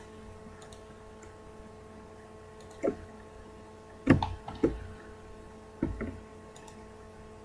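Faint steady hum with four soft clicks and knocks from a computer mouse and keyboard being worked, the last three close together in the middle.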